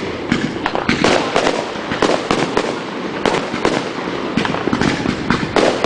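Fireworks going off in a rapid, irregular run of sharp bangs and crackles, several a second.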